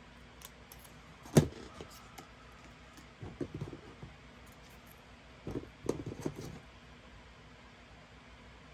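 Scissors cutting paper: short clusters of snips and paper crackle, with one sharp click about a second and a half in.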